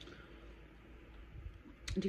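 Quiet room tone with a few faint mouth clicks from a person eating a chocolate wafer bar, and a sharper click near the end as she draws breath to speak.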